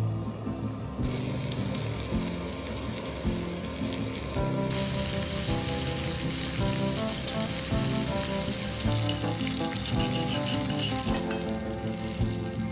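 Food frying in a pan, sizzling, over background music. The sizzle starts about a second in and is loudest and brightest from about halfway to two-thirds of the way through.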